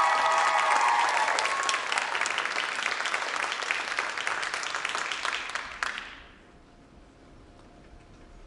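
Audience applauding and cheering, with high cheers near the start. The applause dies away about six seconds in and leaves a quiet hall.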